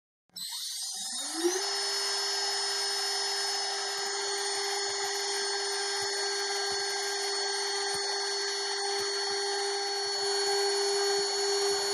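CNC router spindle starting about half a second in, its pitch climbing for about a second as it spins up, then running with a steady high whine while a fine-pointed engraving bit cuts letters into an aluminium plate, with faint scattered ticks from the cut.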